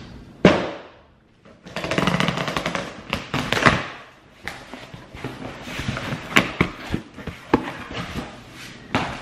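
Cardboard package being torn open by hand: a sharp snap, then about two seconds of fast ripping and crackling, followed by scattered rustling and crackling of the packaging being handled.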